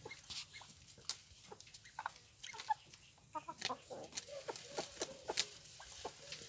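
Chickens clucking softly in short, scattered calls, with light clicks and taps among them.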